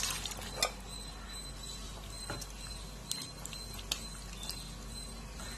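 A few light clicks of a metal spoon against a metal pan as boiled vegetables are stirred into a thin curry gravy, over a faint steady hiss.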